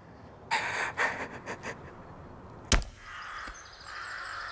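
A rushing swish, then nearly three seconds in a single sharp, heavy thud of an executioner's axe striking the block. Birds chirp after it.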